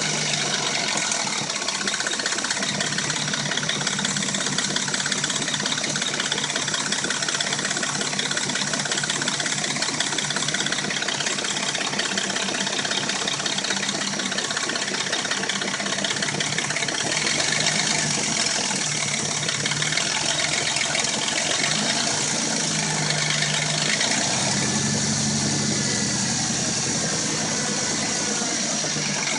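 Dodge Intrepid V6 engine idling steadily, with the rattle the owner puts down to the timing chain, a noise he says comes only when the engine is warm.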